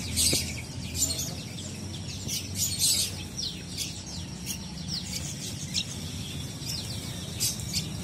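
Many caged songbirds chirping at once: short, high, quick notes, many sliding downward, overlapping irregularly over a steady low hum.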